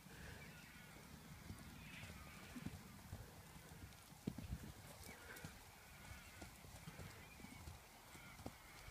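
Faint, irregular dull thuds of a Shetland pony's and a horse's hooves on grass as they trot about the paddock.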